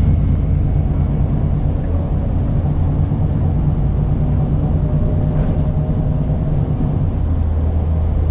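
Bus engine running steadily with a loud low hum; its low note changes about seven seconds in.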